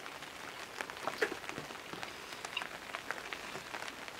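Steady rain, with many separate drops tapping close by on the awning overhead.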